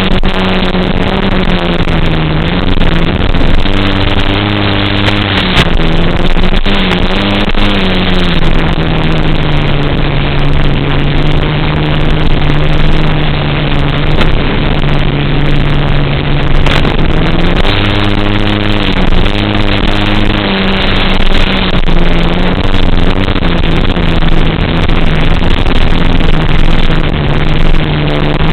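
FPV drone's electric motors running in flight with a steady buzz. The pitch shifts up and down with throttle in the first seconds and again later on, and holds steady through the middle.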